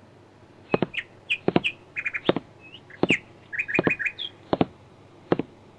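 Short high chirps, some in quick runs of three or four, mixed with sharp clicks, from a small bird-like creature.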